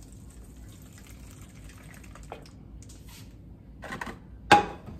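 Melted brown butter being poured from a skillet into a mixing bowl: a faint trickle with small scrapes and ticks of a slotted spoon on the pan. Two sharp knocks come near the end, the second louder and briefly ringing.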